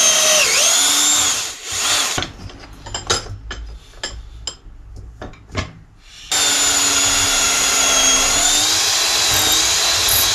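Cordless drill boring holes into a beech-wood dowel: a run of about a second and a half whose whine dips briefly as the bit bites, a short burst, a few seconds of small knocks and clicks as the drill is repositioned, then a second steady run of about four seconds for the second hole, stopping near the end.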